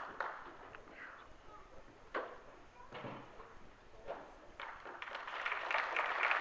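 Audience clapping and applause that builds up about five seconds in, after a few scattered knocks and faint chatter.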